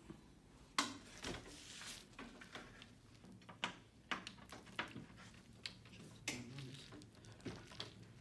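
Irregular clicks, knocks and light rustling from handling an LCD TV's backlight chassis and its plastic reflector sheet, with the sharpest knocks just under a second in and about six seconds in.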